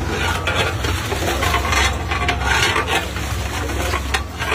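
A long metal ladle stirring and scraping through thick nihari in a large metal pot, with repeated short knocks and scrapes over a steady low hum.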